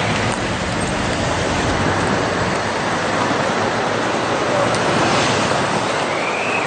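Steady road-traffic noise of cars and vans passing slowly close by, a continuous rush of tyre and engine sound.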